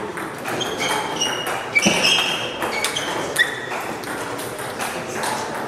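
Table tennis rally: the ball clicking off bats and table in quick succession, mixed with short high squeaks, for about the first three and a half seconds, then the rally stops.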